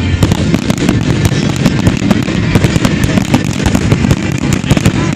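Fireworks going off in a rapid, continuous barrage of bangs and crackles, many reports a second with no break.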